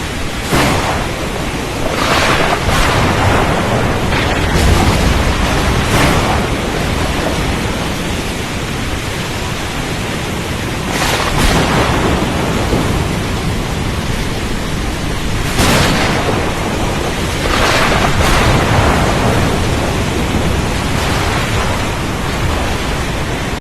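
A storm at sea: a steady, dense rush of rain and wind, with louder surges swelling and fading every few seconds, as thunder rolls in.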